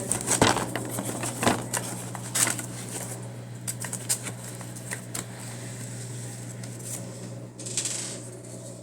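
Small parts being handled, giving scattered clicks and light knocks, a sharp pair in the first two seconds and a few more later, over a steady low hum.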